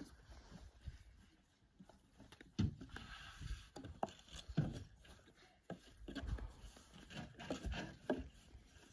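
Light rustling and scattered knocks of dough being rolled out for flatbread: a thin wooden rolling pin rolling and tapping on a wooden board, with hands handling dough and flour. A few sharper knocks come in the middle.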